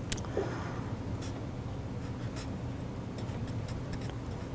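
Pen writing on paper: a run of short, irregular scratching strokes of handwriting.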